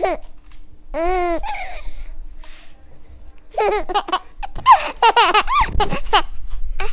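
Baby laughing: a high squeal about a second in, then a run of quick, high-pitched giggles a little past halfway.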